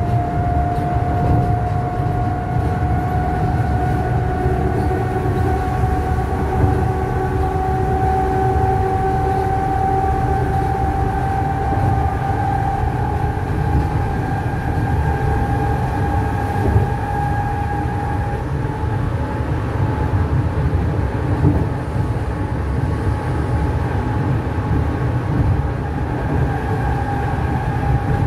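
Berlin S-Bahn class 485 electric train heard from inside the passenger car while under way: a steady low rumble of wheels and running gear. A whine from the drive rises slowly in pitch over the first half, then fades.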